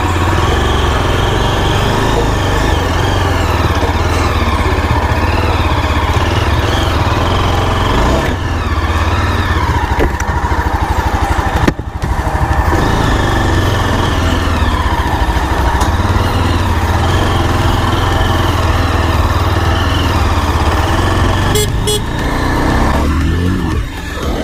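Yezdi Adventure motorcycle's single-cylinder engine running steadily, its pitch rising and falling at times, with a brief break about twelve seconds in.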